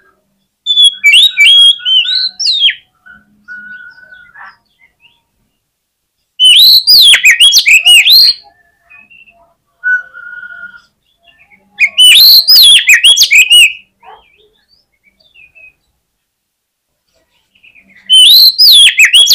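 Oriental magpie-robin singing its aggressive 'fighter' song: four loud bursts of rapid, swooping whistled notes, each about two seconds long and spaced a few seconds apart, with softer single whistles in between.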